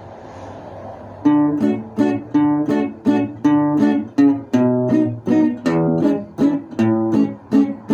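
Acoustic guitar strumming chords, starting about a second in at a steady rhythm of about three strums a second, as a song's instrumental intro.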